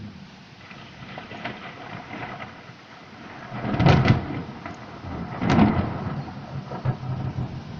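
Thunder rolling in a rainstorm: a low rumble under a steady hiss of rain, with two loud crackling peaks about four and five and a half seconds in.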